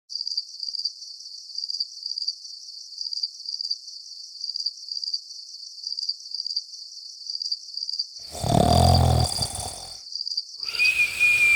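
Crickets chirping in a steady, evenly pulsing trill. About eight seconds in, a loud, low sound lasts about a second and a half, and near the end a high whistled note slides down in pitch.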